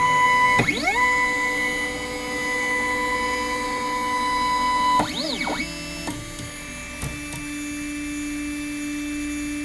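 Ultimaker 2 stepper motors singing as the printer moves after finishing a print: a quick pitch sweep settles into a steady whine while the build plate lowers, then stops about five seconds in with a rising-and-falling sweep as the print head moves. A steady lower hum follows.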